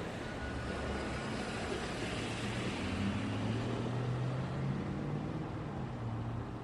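Road traffic going by: a steady rush of tyre and road noise with a vehicle's low engine hum swelling through the middle and easing off near the end.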